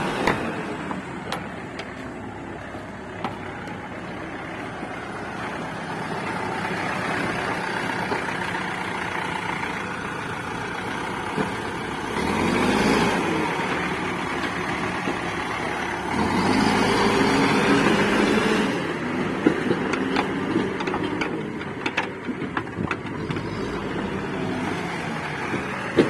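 Diesel engine of a JCB earthmoving machine running steadily, surging twice as it comes under load, once briefly about halfway through and again for a few seconds soon after. Scattered sharp knocks sound over it, more of them near the end.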